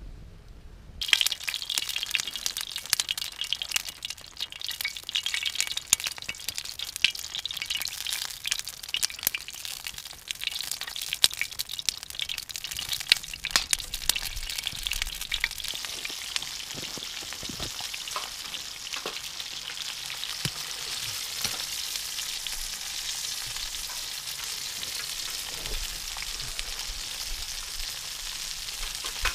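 Sausages sizzling in a griddle pan over a wood fire, a steady hiss with many sharp crackles and pops. It starts suddenly about a second in, and the pops thin out into a steadier sizzle in the second half.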